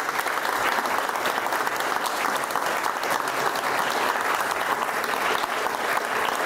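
A group of people applauding, with steady clapping throughout.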